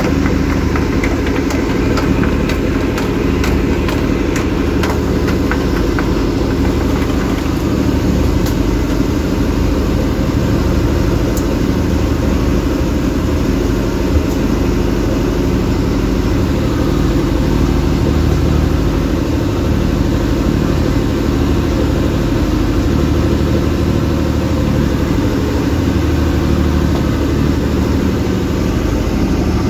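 A fishing boat's engine running steadily under way, over the rush of its wake. Faint scattered clicks in the first several seconds.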